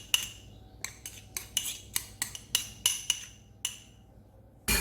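A metal spoon clinking and scraping against a mixing bowl while lemon zest is added to cake batter: a string of sharp ringing clinks, about two or three a second, then a louder knock near the end.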